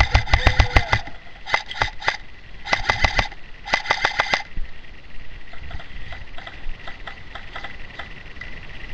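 Airsoft gun firing four short bursts of rapid full-auto fire in the first four and a half seconds, then fainter, sparser bursts of fire.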